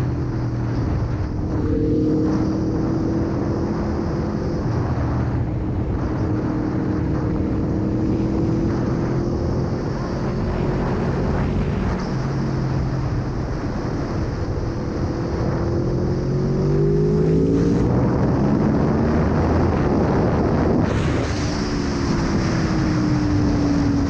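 Aprilia Tuono 1100's V4 engine running under way with a steady note, then revving up about two-thirds of the way in. It turns to a rougher, louder stretch, then drops to a lower note that slowly falls away near the end, as after a gear change.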